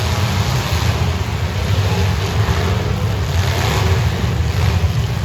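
Demolition derby cars' engines running, a loud steady low rumble under a noisy haze.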